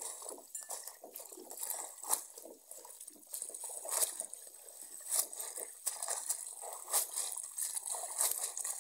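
Hands swishing and scrubbing a basinful of akeyo (spider plant) leaves in water in a plastic basin: water sloshing and leaves rustling in irregular strokes, as the greens are washed free of soil.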